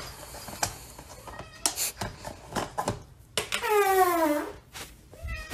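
Plastic food container and its lid clicking and knocking as they are handled on a countertop. About halfway through, a drawn-out wailing cry falling in pitch, and a shorter cry near the end.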